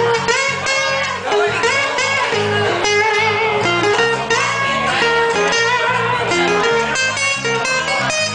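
A live acoustic band plays an instrumental break: strummed and plucked acoustic guitars over a bass line, with a lead melody of held, bending notes above.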